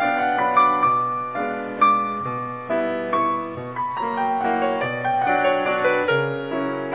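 Background keyboard music: a melody of held notes over chords, running steadily.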